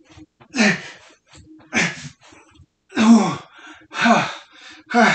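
A man's strained grunting breaths in a steady rhythm, one with each squat rep, about one a second. Each is a short voiced exhale that falls in pitch.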